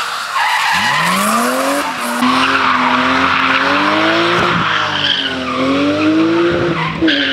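BMW E36 M3 drifting through a hairpin: the engine revs hard, its pitch climbing steeply about a second in, then rising and falling with the throttle over squealing, sliding rear tyres. There are a few sharp cracks in the middle and near the end.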